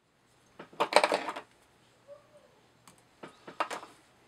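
Close-up handling noises at a fly-tying vise: a burst of rustling and clicking about a second in, then a few scattered light clicks and taps.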